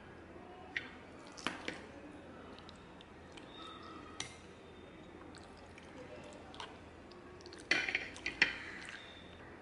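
Plastic spoon clicking and scraping against a plate while scooping rice: a few scattered clicks, then a louder run of scrapes and taps near the end.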